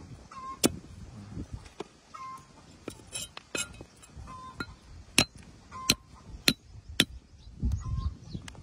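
Steel cleaver slicing a fresh rhizome on a wooden stump chopping block: about ten sharp knocks of the blade striking the wood, irregularly spaced, the loudest about half a second in.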